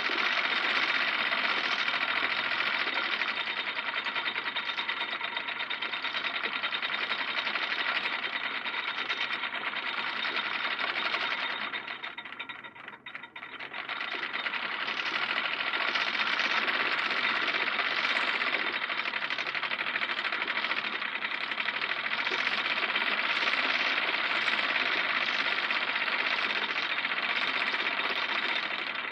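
An anchor being raised and lowered: chain running through a winch with a fast, continuous metallic rattling clatter. It dies down for a moment about halfway through, then starts up again.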